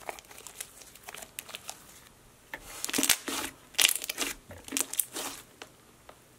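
White slime with small foam beads being squeezed and kneaded by hand, giving runs of sticky crackles and pops. They are quieter at first and come louder and thicker from about two and a half seconds in.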